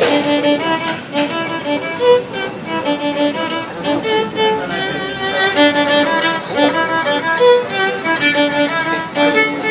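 A violin playing a lively tune of short, separate notes.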